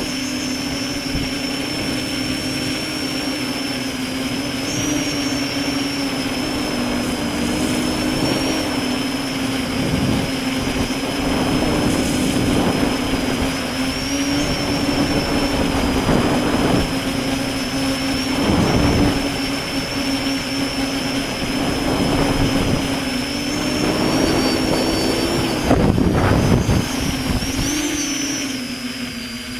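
Electric motors and propellers of a V-tail multirotor in flight, a steady whine that wavers slightly in pitch, with a rushing noise swelling every few seconds.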